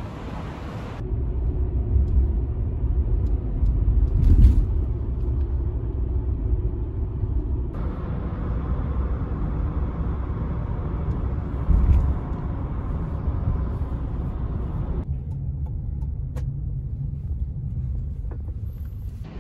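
Steady low road and engine rumble heard from inside a moving car's cabin, with a few louder bumps about 2, 4 and 12 seconds in. It follows a second of open street noise at the start.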